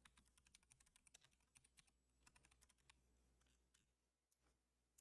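Faint computer keyboard typing: a quick run of key clicks over about the first three seconds, then near silence.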